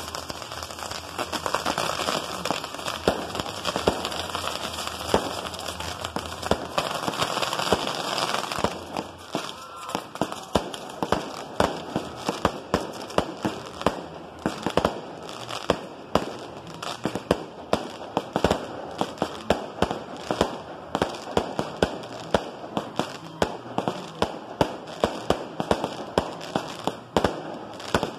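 Fireworks: a fireworks tower (castillo) spraying sparks with a dense hissing crackle for about the first eight seconds, then a rapid string of sharp bangs, two or three a second, as aerial fireworks burst.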